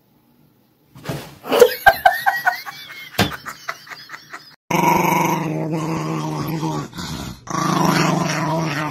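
Small white dog growling with bared teeth in two long, steady growls of about two seconds each, starting about halfway through. It comes after a few seconds of scattered clicks and squeaky gliding sounds.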